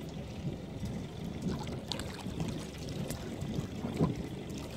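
Water lapping and sloshing at the surface over a low steady rumble, with a few small splashes, the loudest about four seconds in.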